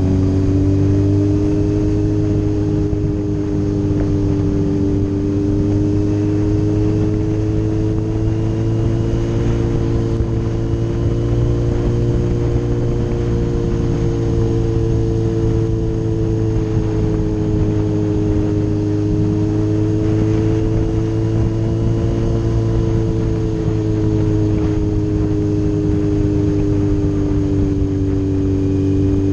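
Kawasaki Z900RS inline-four engine running steadily while cruising on the open road, its note rising and falling gently with the throttle, over a constant low rumble.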